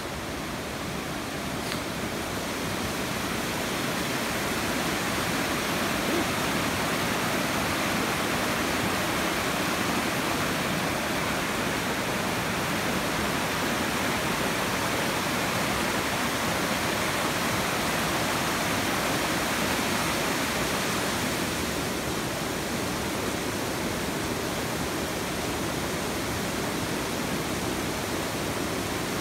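Rushing mountain stream: a shallow, fast river running over rocks in a steady whitewater rush, growing a little louder over the first few seconds and then holding even.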